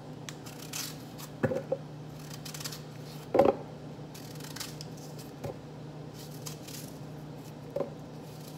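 Knife slicing a crisp apple in the hand with many short crunchy cuts, and apple pieces dropping into a plastic NutriBullet blender cup with three dull knocks, the loudest about three and a half seconds in. A steady low hum runs underneath.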